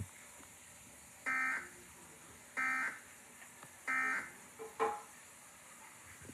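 Emergency Alert System end-of-message data tones: three short, identical bursts of buzzing digital data about a second and a quarter apart, marking the end of the alert. A brief separate sound follows a little before the five-second mark.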